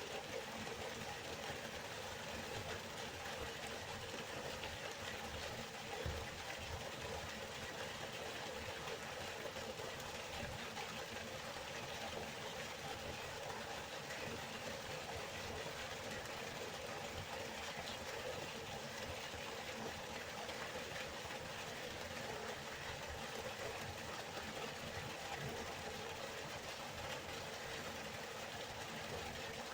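Waterfall: a steady rush of falling water, even and unbroken, with one brief low thud about six seconds in.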